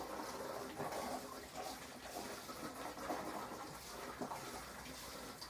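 Water poured steadily from a plastic jug onto the top tray of a stacked fodder rack, splashing onto the mat of sprouting wheat and barley seed.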